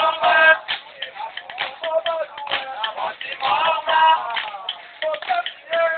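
Live music: singing over rhythmic, fast hand-struck percussion. It sounds thin and tinny, with no bass.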